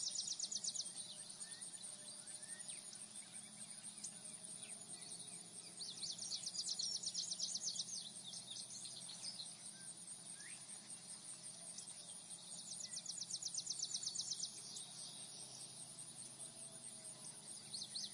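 Faint countryside nature ambience: birds chirping, with high rapid trills that swell and fade every few seconds over a steady high hiss.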